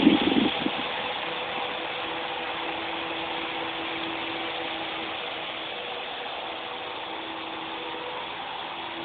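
Toy RC helicopter's small electric motors and rotors whirring in flight. It is loud as it passes close at the very start and fades within the first second to a steady, fainter whir with a faint hum as it flies farther off.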